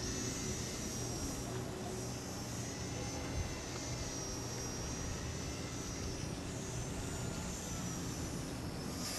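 Tiny electric motor and propeller of a direct solar-powered micro RC model airplane, run only by two solar cells with no battery, whining high in flight. The pitch wavers up and down.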